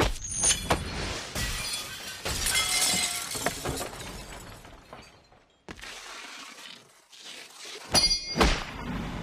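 Fight sound effects: a dense run of crashes, with glass shattering and things breaking amid heavy knocks, over the first few seconds. Then a short cluster of sharp blows with ringing metallic clangs about eight seconds in.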